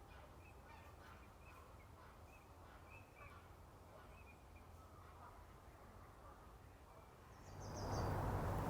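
Faint, scattered calls of distant waterfowl over a low rumble. Near the end a much louder steady noise comes in sharply.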